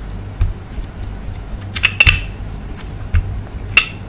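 Rolling pin rolling out flatbread dough on a plastic tray: a low rolling rumble with scattered knocks and clatters, the sharpest about two seconds in and again near the end.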